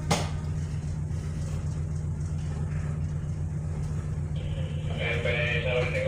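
Steady low drone of a car ferry's engines running underway, with a single click right at the start.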